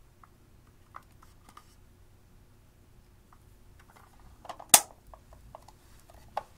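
A makeup brush tapping and scraping in a hard plastic eyeshadow palette: scattered light clicks, with one sharp, much louder click a little after the middle and another near the end.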